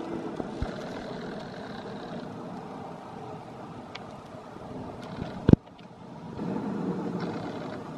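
RMC wooden roller coaster train running along its steel-topped wooden track at a distance, a steady rumbling noise. About five and a half seconds in, a sharp knock cuts in, the sound drops briefly, and then the rumble swells again.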